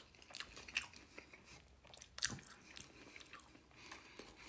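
Chewing and crunching toast, with a few sharp crunches; the loudest comes about two seconds in.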